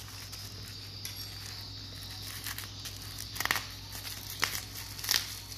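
Bubble-wrap packaging crinkling and rustling as it is handled and pulled open, with a few sharper crackles in the second half.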